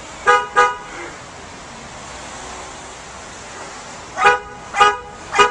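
Car horn sounding in short taps as a dog presses it: two quick honks just after the start, then three more about half a second apart near the end.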